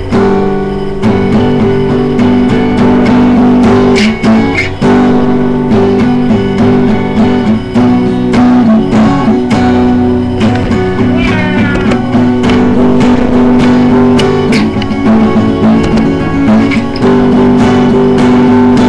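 Guitar playing: loud held chords with repeated strums, changing chord a few times.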